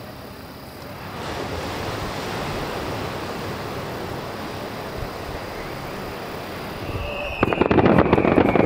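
Steady murmur of a beach crowd with surf. About seven seconds in, the fireworks display opens with a loud, dense rapid crackle of shell bursts and a high whistle over it.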